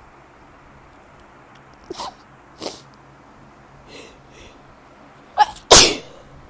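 A woman sneezing: two short sharp bursts about two seconds in, a couple of faint breaths, then a loud sneeze near the end, the loudest sound, with a quick lead-in just before the explosive release. It is part of a sneezing fit that she puts down to spring allergies.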